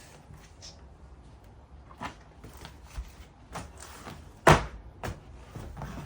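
A few light knocks and one loud, sharp thump about halfway through: parts and packaging of a diesel heater kit being handled and set down while unboxing.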